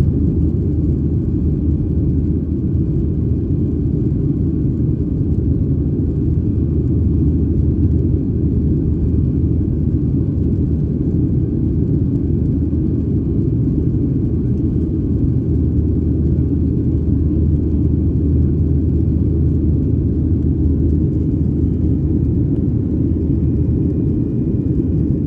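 Steady low rumble of a Boeing 737-800's CFM56 turbofan engines and airflow, heard from inside the passenger cabin during the climb after takeoff.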